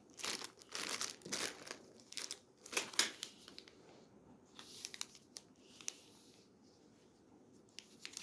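Candy wrappers and packaging crinkling as they are handled, in irregular bursts. The bursts are busiest in the first few seconds and grow sparser toward the end.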